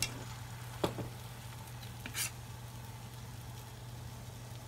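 Beaten egg sizzling gently in an oiled rectangular tamagoyaki (rolled-omelette) pan, a steady faint hiss, with two short clicks from handling at the pan.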